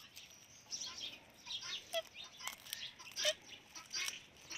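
Parrot chattering softly: a loose run of short, high chirps, squeaks and quick falling notes with small pauses between them.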